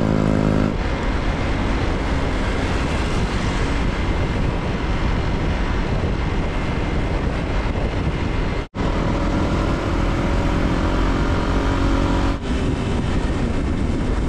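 Motorbike ride in city traffic: a steady rush of wind and road noise with the engine humming beneath it. The sound cuts out abruptly about 9 seconds in and dips again about 12 seconds in.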